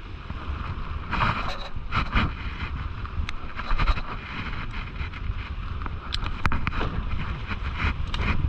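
Wind buffeting the microphone, a steady low rumble, with a few short clicks and rustles of handling.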